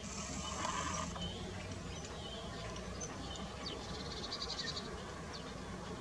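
Outdoor bird ambience: scattered brief high chirps from small birds, a short buzz in the first second and a rapid pulsed trill about four seconds in, over a low steady rumble.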